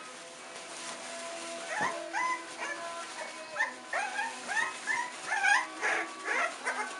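Four-week-old Olde English Bulldogge puppy giving a quick run of about a dozen short, high cries, each rising in pitch, starting about two seconds in. Soft background music runs underneath.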